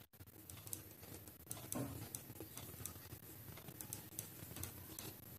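Ballpoint pen writing on notebook paper: faint scratching with scattered light taps as symbols are written.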